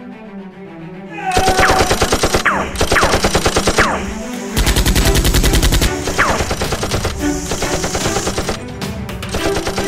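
Rapid automatic gunfire sound effects in long bursts, starting about a second in, over background music.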